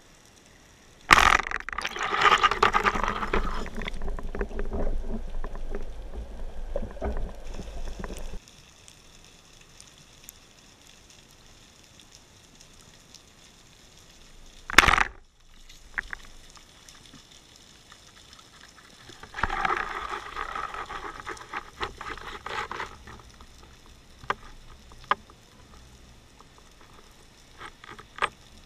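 Muffled underwater noise heard from inside a camera housing: two stretches of rushing, gurgling water movement, the first starting abruptly about a second in and stopping suddenly, with one sharp, loud crack about halfway through and a few faint clicks near the end.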